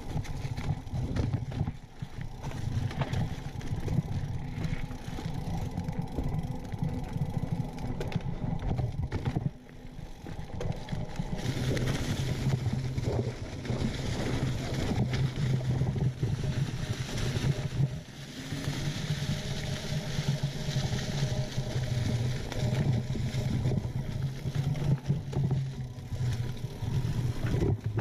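Mountain bike being ridden over a dirt singletrack trail: tyres rolling over dirt and roots, with the bike rattling and knocking over bumps and wind rumbling on the microphone.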